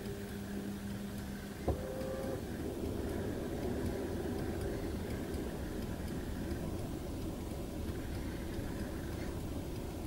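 Steady low rumble inside the cabin of a Mercedes-Benz W211 E-Class with the engine idling. A single sharp click comes about one and a half seconds in as a climate-control button is pressed.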